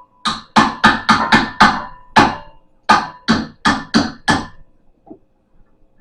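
A tool banging on a treadmill's tight metal fitting to loosen it: about a dozen sharp, ringing strikes in quick succession, stopping about four and a half seconds in, then one soft knock.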